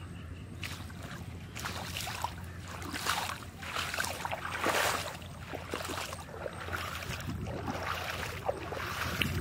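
Water splashing and sloshing in irregular surges, loudest about five seconds in.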